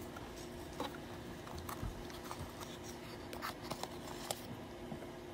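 A small cardboard box being handled and opened by hand: scattered faint clicks, taps and scrapes of card, over a low steady hum.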